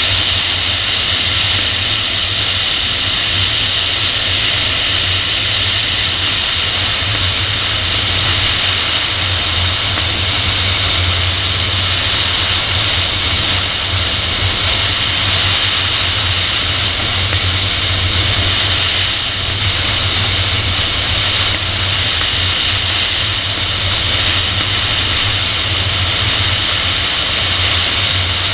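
Steady wind rush of airflow over a camera mounted on the tail of a PIK-20 sailplane in gliding flight, a constant high hiss over a low rumble.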